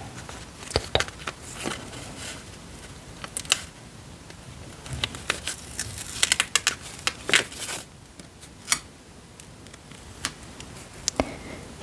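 Close-miked handling of paper sticker sheets and planner pages: scattered clicks, taps and short crinkles, with a quick run of them about six to seven and a half seconds in.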